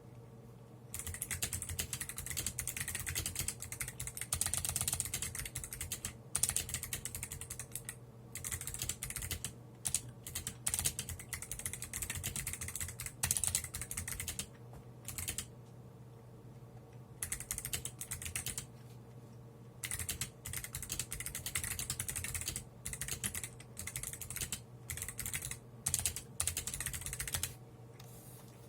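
Typing on a Womier K87 mechanical keyboard fitted with Kailh Jade clicky switches: fast runs of sharp key clicks in bursts, with short pauses between them.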